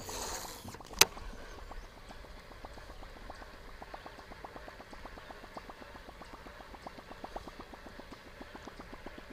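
Baitcasting reel: a brief rush of line paying out on the cast, a sharp click about a second in as the reel is engaged, then rapid, even ticking as the lure is reeled back in.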